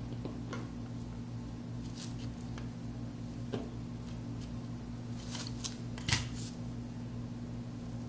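Hard alloy seal-engraving knife cutting into the face of a Changhua soapstone seal: a scatter of short scratchy scrapes, the loudest about six seconds in, over a steady low hum.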